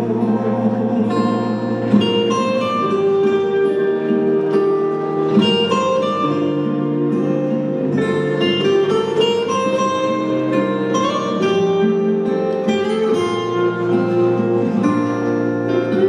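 Instrumental break in a song's accompaniment: plucked guitar notes over held chords, with no voice.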